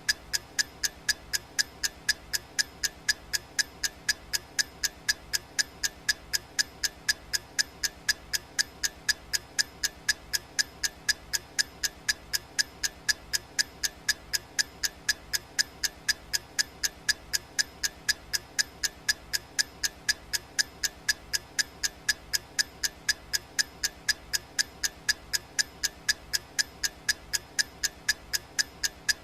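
Clock-tick sound effect of a countdown timer: sharp, evenly spaced ticks, about three a second, all at the same level.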